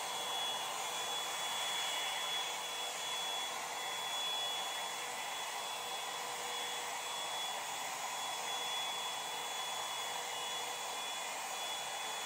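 Revlon One-Step hair dryer and volumizer brush blowing steadily as it is drawn through long hair: an even rush of air with a thin high whine from its motor.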